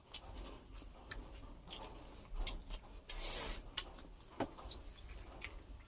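Close-up eating sounds: scattered small clicks and rubbing of chewing and handling food, with a short hiss about three seconds in and a sharper click a little after.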